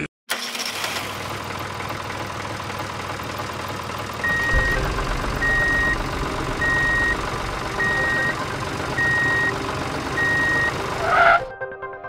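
Vehicle engine running steadily, with a reversing alarm beeping six times at one pitch, a little over a second apart, starting about four seconds in. A brief louder sound comes near the end.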